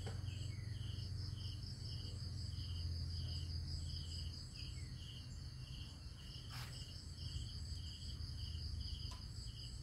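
Insects chirping: a steady high trill with short chirps repeating about twice a second. A low rumble sits underneath and eases about four seconds in, and there is a single sharp click about six and a half seconds in.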